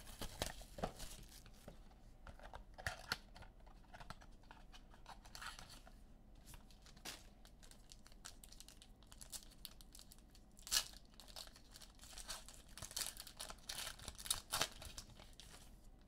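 Wrapping on a box and packs of football trading cards being torn open and crinkled by hand, in short scattered rips and crackles, the sharpest about eleven seconds in.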